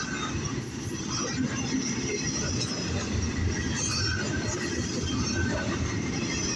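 Freight cars of a long intermodal train rolling past: a steady rumble of wheels on rail with faint, scattered wheel squeals.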